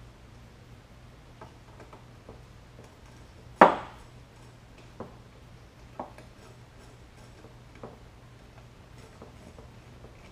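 Scattered clinks and taps of hand tools and metal engine parts handled on a workbench, with one louder metallic clank about three and a half seconds in and a few lighter knocks after it, over a steady low hum.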